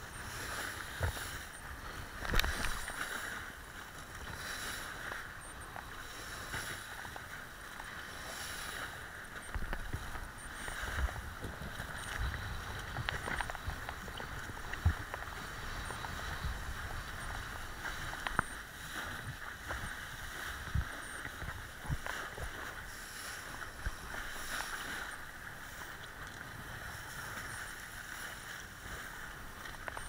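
Kiteboard planing over choppy water: a steady rush of water and spray, broken by irregular slaps and knocks as the board hits the chop, the hardest about two and a half seconds in and about fifteen seconds in.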